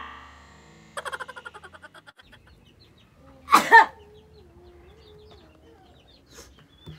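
A woman laughing in a quick run of fading breaths, then one loud two-part sneeze about three and a half seconds in.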